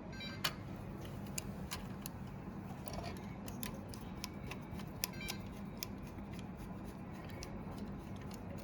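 Scattered light metallic clicks and ticks as a small screw is fitted and driven with a screwdriver into the RC mine truck's gearbox parts. A faint steady low hum runs underneath.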